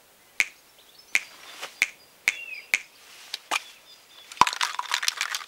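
Sharp snaps, one about every half second, then from about four seconds in a dense crinkling rustle, like a plastic protective coverall being moved and handled.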